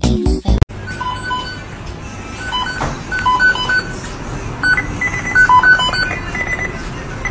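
A simple tune of short electronic beeps at a few different pitches, over a steady hiss.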